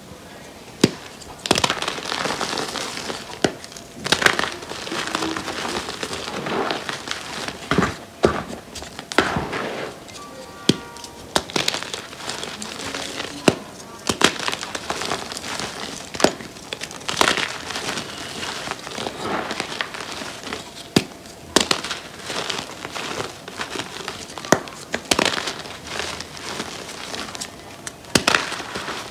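Blocks of reformed gym chalk crushed and crumbled by hand into loose chalk powder: crunching and powdery rustling, broken by sharp irregular cracks and snaps as pieces break.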